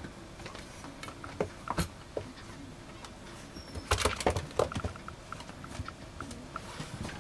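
French bulldog puppies moving about, their paws and claws tapping and scrabbling on plastic puppy-pad trays and bedding, with a flurry of louder knocks about four seconds in.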